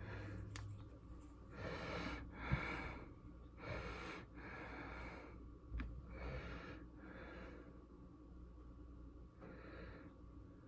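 A person breathing faintly in and out, the breaths coming in pairs about every two to three seconds, with a couple of light clicks.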